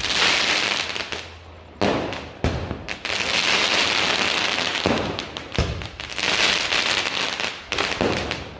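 Diwali firecrackers going off: a series of sharp bangs, each followed by a second or more of hissing crackle.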